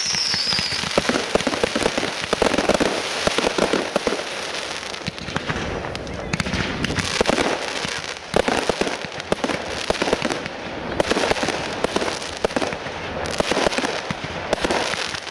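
A fireworks display: dense, continuous crackling from many small bursts and crackling stars, with louder reports every second or so. A short whistle falls slightly in pitch at the start.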